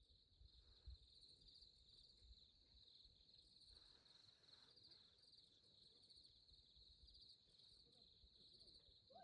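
Faint, steady chorus of night insects chirring, with a soft low bump about a second in.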